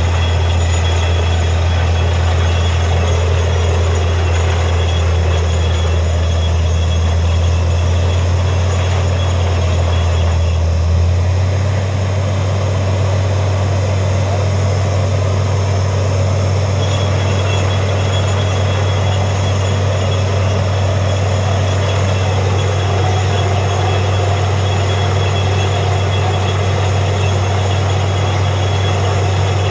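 Truck-mounted borewell drilling rig running steadily while drilling: a loud, low engine hum over an even rushing hiss of air and muddy slurry blowing out of the borehole. About a third of the way in, the engine note steps up slightly in pitch.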